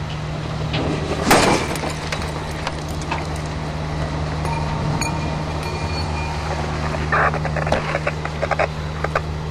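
A steady, low engine hum, a motor running at a constant speed. A single sharp crack comes about a second in, and scattered clicks and short bursts follow near the end.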